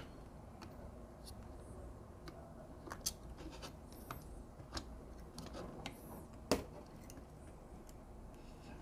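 Faint scattered clicks and taps of a soldering iron and small tools working on a circuit board while a connector's tabs are soldered, the sharpest tap about six and a half seconds in.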